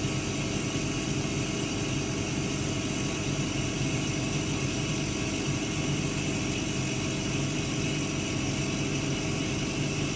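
Laser cutter running an etching job on fabric, with its fume extractor running alongside: a steady machine hum and whir with several constant tones.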